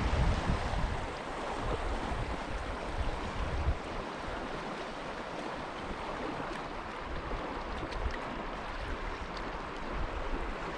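Trout stream water running steadily, with wind rumbling on the microphone in the first few seconds.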